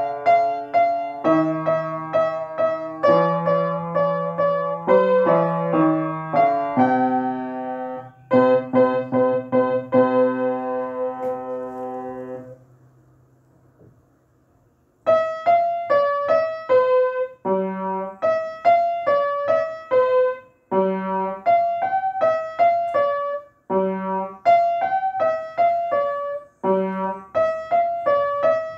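Upright piano played by a child: one short piece ends around twelve seconds in with held chords that die away. After a two-second pause a new piece begins, with a melody over a low bass note struck about every three seconds.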